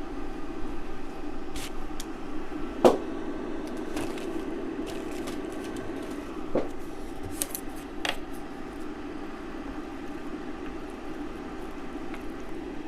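Kitchen handling sounds while saucing a pot of cooked noodles: a few sharp clicks and knocks, the loudest about three seconds in, over a steady low hum.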